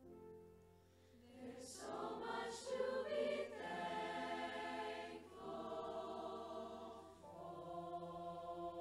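High school chorus singing a slow song in sustained chords, swelling about a second in and holding long notes, changing chord twice.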